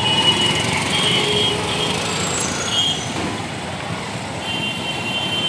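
Busy street traffic: auto-rickshaws and motorcycles running in a steady din, with several short high-pitched tones sounding over it now and then.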